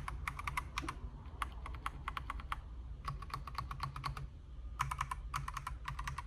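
Keys on a Redragon K668 mechanical keyboard being pressed in quick runs of clicks with short pauses between them. These are the blue keys, which sound softer and less clacky.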